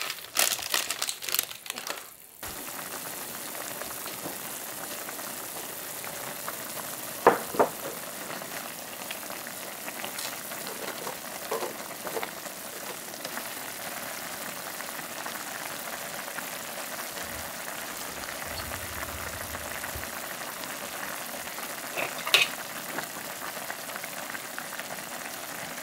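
Pot of spicy ramyeon broth at a rolling boil, a steady bubbling hiss, as the noodle block cooks in it. Crackly rustling in the first two seconds, and a few sharp knocks later on.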